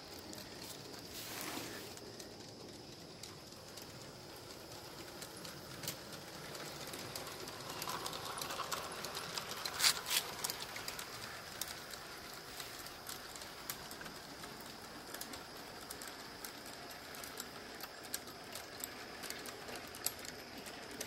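G-scale model freight train rolling along garden track, its wheels clicking irregularly over the rail joints. The clicking grows louder about eight to eleven seconds in, strongest around ten seconds as the cars pass closest.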